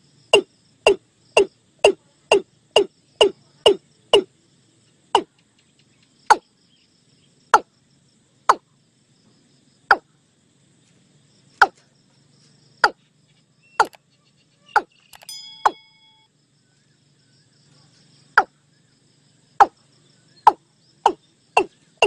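Watercock giving a series of short, sharp 'tok' calls. They come about two a second at first, slow to roughly one a second in the middle, and quicken again near the end.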